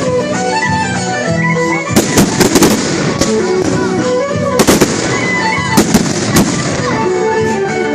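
Fireworks going off in a handful of sharp bangs, the first cluster about two seconds in and more around the middle, over music playing throughout.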